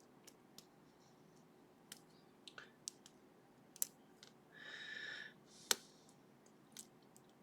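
Faint, irregular metallic clicks as a short hook lifts the barrel drivers of a sleeved Ruko lock and they catch in the plug's milling, with a brief hiss about two-thirds of the way through. Lots of clicks are usual with barrel drivers.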